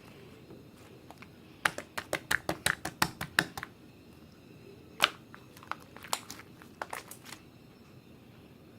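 Sharp crackling clicks in clusters: a quick run of about a dozen in the first few seconds, one loud click a little after the middle, then a few more scattered ones.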